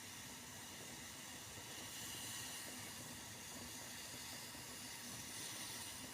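Low, steady hiss of a pot of flaxseed and water simmering on a butane gas burner, the seeds cooking down to release their gel.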